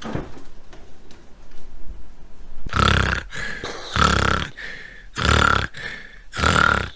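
Loud, exaggerated snoring: four snorts about a second apart, starting a little under three seconds in.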